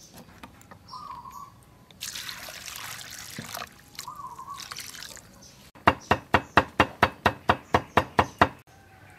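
Water poured into a bowl for a couple of seconds, then a cleaver chopping garlic on a thick wooden chopping block in a quick, even run of about a dozen strokes near the end, the loudest sound.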